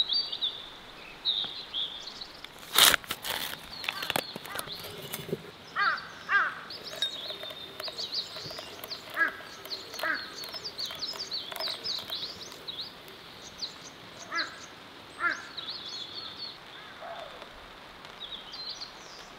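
Wild birds singing and calling, with short chirps and repeated call phrases throughout. A couple of sharp knocks come about three and four seconds in.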